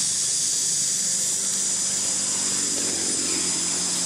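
Steady high-pitched hiss with a faint low hum underneath.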